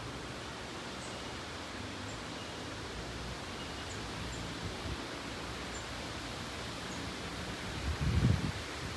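Airbus A320-232's IAE V2500 turbofan engines heard as a steady, even rushing roar as the airliner passes overhead, with a brief low thump about eight seconds in.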